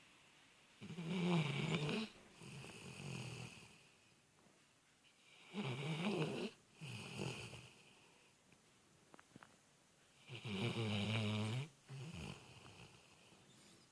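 Snoring in deep sleep: three snores about every four to five seconds, each a loud snore followed by a softer, shorter one.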